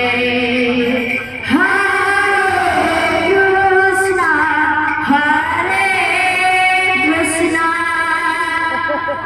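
Female voices singing a Sambalpuri devotional kirtan, amplified over a microphone, in long held notes; there is a short break about a second and a half in before the next phrase starts.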